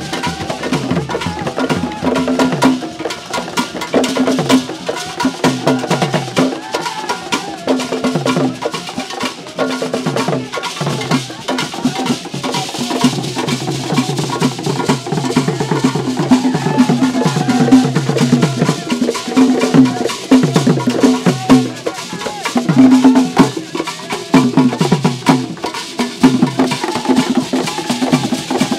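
Ghanaian traditional hand drums played live by a group of drummers: a fast, dense, steady rhythm of many overlapping strokes with a recurring deeper drum tone.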